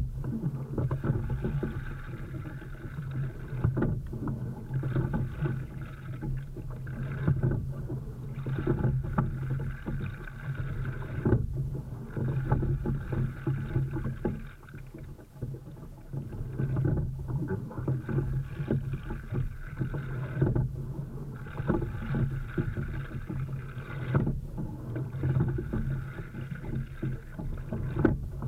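Single racing scull being rowed: water rushing along the hull and around the oars, surging and easing with each stroke at about one stroke every three and a half seconds, with a short knock at each turn of the stroke.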